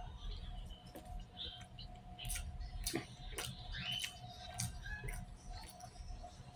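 Close-up eating sounds: chewing with scattered sharp mouth smacks and clicks, several a second at times.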